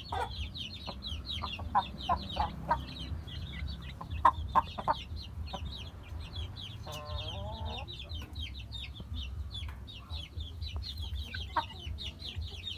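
Chickens: hens giving short sharp clucks, bunched between about two and five seconds in, and one longer drawn-out call about seven seconds in, over a constant rapid, high peeping of chicks.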